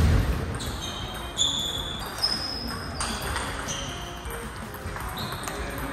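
Background music of high, bell-like notes changing pitch about every half second, opening with a deep thump. Faint sharp clicks of a table tennis ball run underneath.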